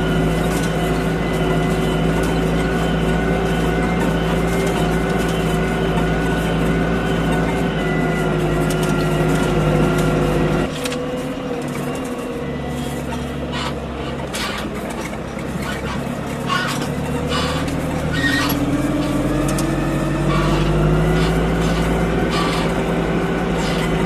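Deutz-Fahr Agroplus 90 F tractor's diesel engine running steadily while the tractor drives. About ten seconds in, the sound cuts to a lower engine note with scattered rattles and knocks. A few seconds later the engine speeds up, its pitch rising.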